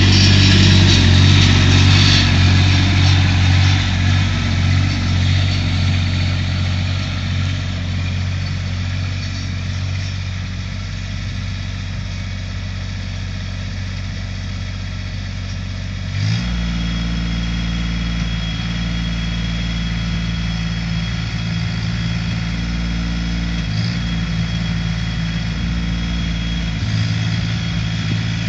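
Kubota B2530 compact tractor's three-cylinder diesel engine running steadily while it drives a rear rotary tiller through the soil. It is loudest at first and softens as the tractor moves off. About sixteen seconds in, the engine note changes abruptly and then holds steady.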